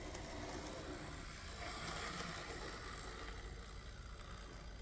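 Märklin Z-scale class 194 'Crocodile' electric model locomotive running along the track: a steady whir of its small motor and its wheels on the rails, a little louder about two seconds in.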